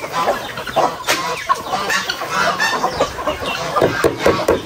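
Chickens clucking: many short calls overlapping.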